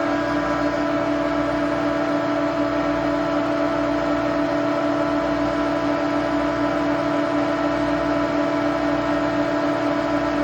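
Refrigeration rack compressors running in the machine room: a steady, loud hum with a fixed pitch over an even mechanical noise, unchanging throughout.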